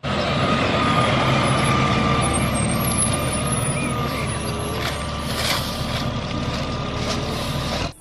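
Rear-loading garbage truck with its engine running steadily and a steady high whine over it, with a few short sharp noises about five seconds in.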